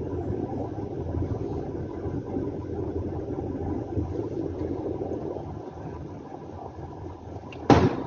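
Steady low rumble of a vehicle running, heard from inside. Near the end comes one sharp bang: a firecracker going off.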